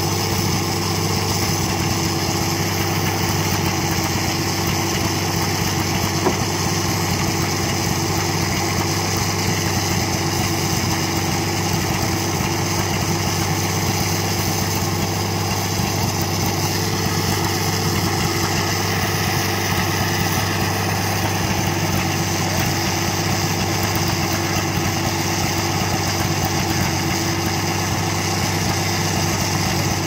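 Engine powering an old circular sawmill running steadily at idle, with no cut under way. There is one light click about six seconds in.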